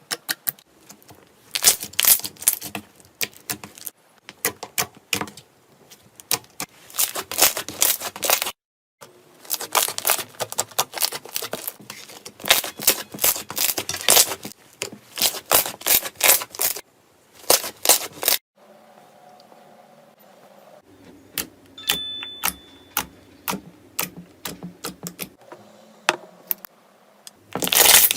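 Slime being squeezed and poked by hand, making dense runs of crisp crackling and popping clicks. After a cut, softer and sparser squishing clicks follow.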